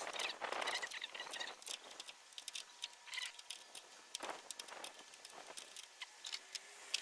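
Light clicks, ticks and short scrapes of hand work on engine-bay parts: fasteners and plastic or metal pieces being handled and worked loose, irregular throughout.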